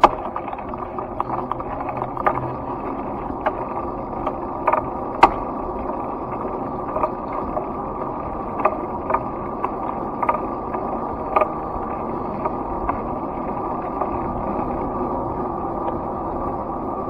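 Steady wind and tyre noise from a camera riding along a paved street, with irregular sharp clicks and rattles every second or two; the loudest click comes about five seconds in, and they thin out near the end.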